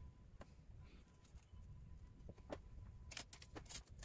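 Quiet handling sounds: a few faint light clicks, then near the end a quick run of sharp crinkling clicks as a small paper cleaning-wipe sachet is handled and opened.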